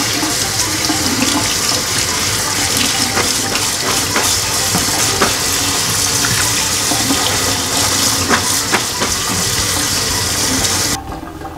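Kitchen tap running steadily onto beans in a stainless-steel mesh strainer over a steel sink as they are rinsed, with a few light clicks; the flow stops abruptly near the end.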